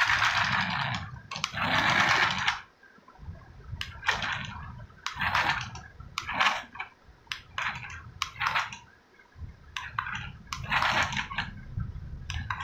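Battery-operated toy car running on a glass counter: its motor and plastic gears whir and its wheels rattle on the glass in irregular bursts over a low rumble.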